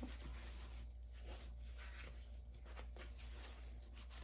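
Faint, soft rustling and rubbing of a paper towel wiping a palette knife clean, in short irregular strokes.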